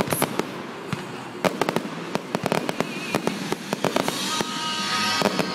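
Fireworks display: a rapid, irregular string of sharp bangs and crackling from aerial shells bursting. A high, slowly falling whistle joins in about four seconds in.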